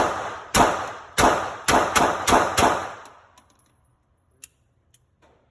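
Seven 9mm pistol shots from a Glock 43, fired at an uneven, fairly quick pace over under three seconds, each with an echoing tail. Then a couple of light clicks.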